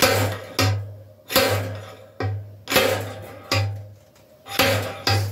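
Slide hammer pulling a dent in a Honda ATC200X metal gas tank through a welded-on stud: the sliding weight knocks against its stop about eight times, irregularly spaced half a second to a second apart, each knock ringing out briefly through the metal.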